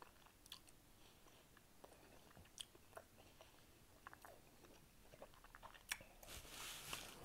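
Faint close-miked chewing, with soft wet mouth clicks scattered throughout. Near the end comes a brief soft hiss.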